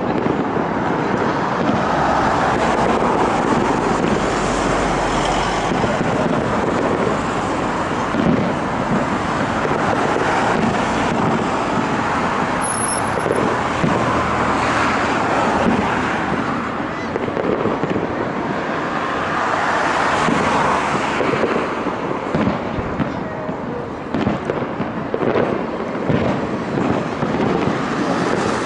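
Fireworks display: a continual run of bangs and crackles from bursting aerial shells, over a constant background noise.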